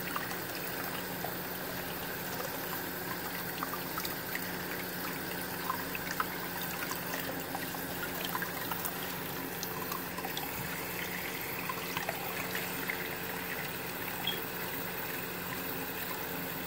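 Tap water running steadily into a filled tub, with small splashes and drips as a hand rubs water over a small lizard.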